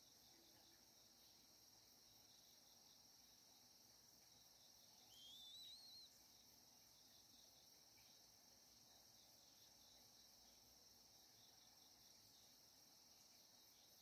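Faint, steady high-pitched insect trill, like a cricket chorus, with one short rising, wavering bird whistle about five seconds in.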